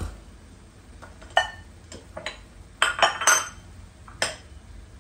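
Kitchenware clinking and knocking: a glass bowl and a wooden spatula striking the frying pan and the counter. A single ringing clink about a second in, a quick cluster of knocks and clinks around three seconds in, and one more sharp knock near the end.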